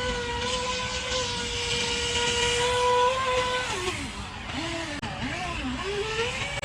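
Brushless electric motor of a small remote-control speedboat whining at high speed over rushing water and spray noise. Its pitch drops and swings back up several times in the middle as the throttle is eased and reapplied, then settles high again.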